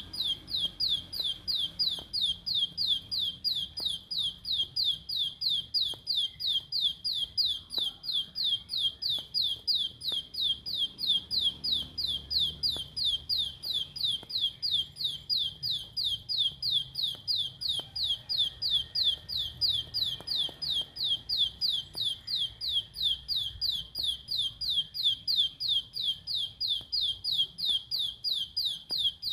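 Ciblek sawah (plain prinia) calling in a long, unbroken, even run of rapid repeated high notes, each a quick downward sweep, a few per second: the fast 'tembakan' call that bird keepers play to set other ciblek singing.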